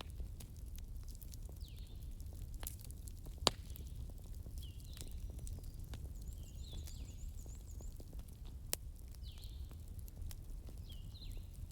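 Wood fire crackling with scattered sharp pops, the loudest about three and a half seconds in, over a low steady rumble. A bird calls in short chirps repeated every second or two.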